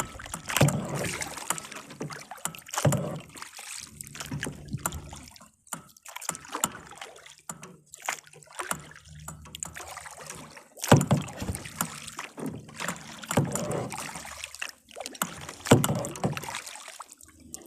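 Kayak paddle strokes in the water: a splashing swish every couple of seconds, with a quieter pause between strokes partway through.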